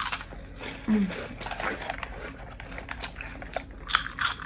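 Close-miked mouth sounds of eating a snack: chewing and lip smacks, with sharp clicks at the start and near the end and a short low hum about a second in.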